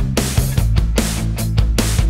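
Background music with a steady beat over sustained low bass notes.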